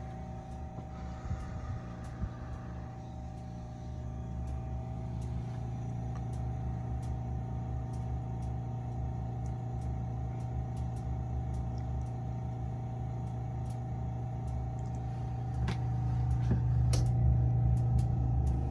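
Intertherm mobile home gas furnace running with its burner lit, giving a steady motor hum with a faint whine above it. The hum gets louder about three seconds before the end, with a few clicks.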